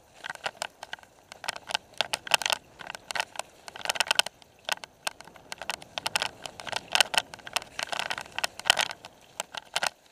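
Mountain bike clattering down a rough dirt trail: a fast, irregular rattle of clicks and knocks as it runs over bumps and roots.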